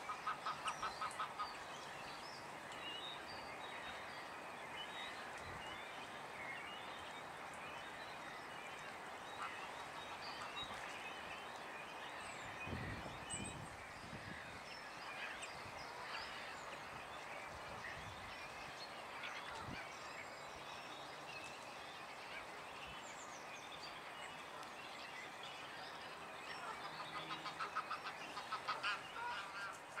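Waterfowl giving quick series of honking calls at the start and again near the end, over a steady chorus of small songbirds chirping.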